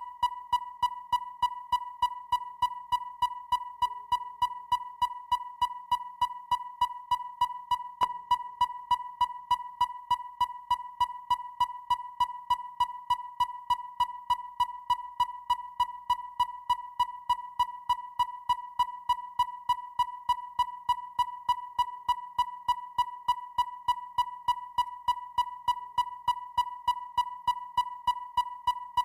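Depth finder (sonar fish finder) beeping: a short, fairly high electronic ping repeated evenly about three times a second, without change.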